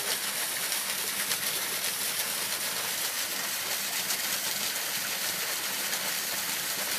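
Small, partly frozen waterfall: water trickling and splashing down under its ice as a steady hiss.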